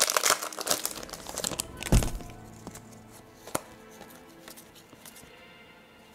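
Foil trading-card pack wrapper crinkling and tearing as it is pulled open, ending in a thump about two seconds in. Then quieter, with faint music and a single click as the cards are handled.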